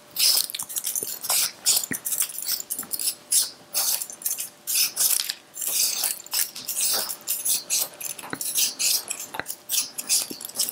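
Metal swivel vegetable peeler scraping the skin off a raw potato in quick repeated strokes, about two short rasping scrapes a second.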